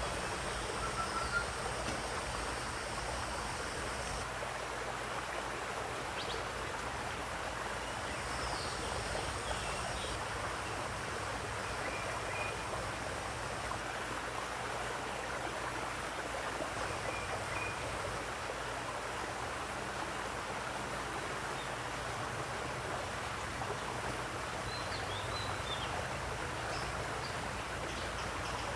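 Steady rush of running water, with a few brief bird chirps scattered over it.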